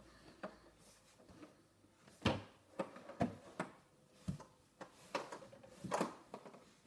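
Hollow knocks and thumps of a toddler's hands, knees and feet on a plastic playhouse as he climbs it, about a dozen irregular hits packed into the middle few seconds, the first heavy thump the loudest.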